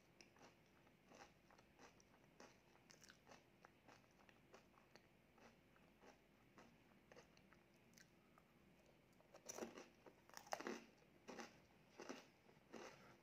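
Biting into and chewing a crisp wafer ice cream cone, a run of small crackly crunches, with louder crunches in the last few seconds.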